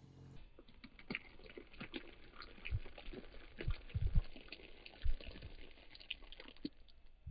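Car tyre rolling slowly over a pile of candy-coated chocolates, the sugar shells cracking in a dense run of small crackles and clicks, with a few dull thumps.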